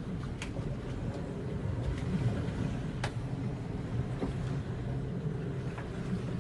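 Boat engine running steadily under wind and sea noise, a low rumble with a few sharp clicks.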